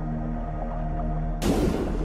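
Dark, eerie ambient soundtrack music with steady held tones. About one and a half seconds in, a sudden loud rush of noise fades over about half a second: the sound of the buried stargazer lunging out of the sand.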